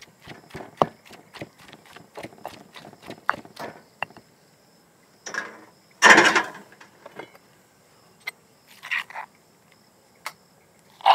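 Wooden pestle pounding green chutney in a stone mortar, quick even knocks about four a second, which stop about four seconds in. A louder scrape follows about six seconds in, with a few fainter scrapes and a knock later.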